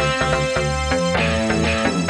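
Instrumental music with a steady bass line and several pitched parts changing notes a few times a second.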